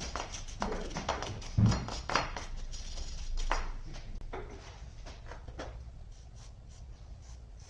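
Hand wire brush scrubbing rust off a car's wheel hub: a quick run of scraping strokes that grow fainter and sparser after about four seconds.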